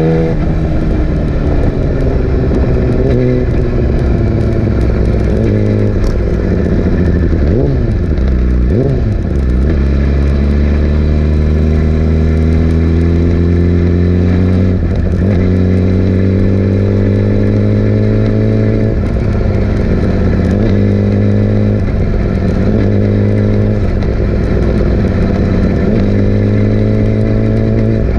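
Yamaha R6 inline-four sport bike engine running under way, its note rising and falling with the throttle. There are a few quick drops and recoveries in pitch, like gear changes, about eight seconds in and again around fifteen seconds, then a steady climb in pitch through the second half.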